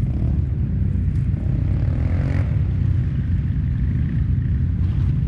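ATV engine running with a steady low rumble.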